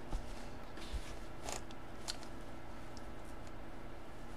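Clear plastic bag around a folded baseball jersey crinkling in a few brief, faint rustles as it is handled, with a soft bump just after the start.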